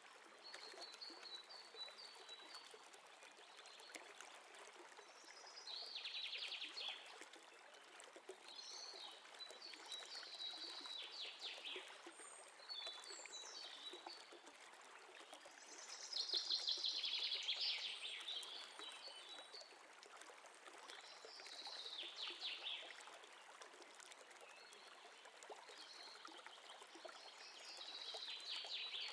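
Faint bird chirps and trills, a short burst every few seconds, over a steady soft hiss.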